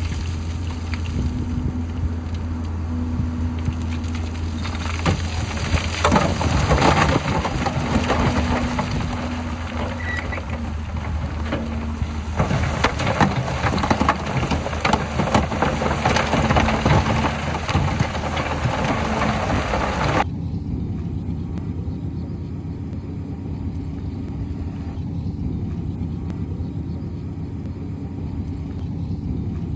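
Heavy diesel earthmoving machinery running, most likely the bulldozer, with a steady low engine note under dense clattering and crackling of tracks and rock. About two-thirds of the way through the clatter cuts off suddenly, leaving only a muffled low engine rumble.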